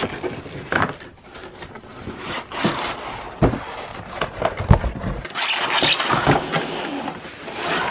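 Large cardboard box being pulled open by hand: irregular scraping and crackling of the cardboard flaps, with scattered knocks, two dull thumps near the middle and a longer scrape in the second half.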